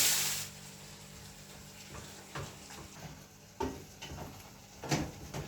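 A short loud burst of food sizzling in a hot pot at the start, then a quieter stretch with a few scattered knocks and taps of cookware.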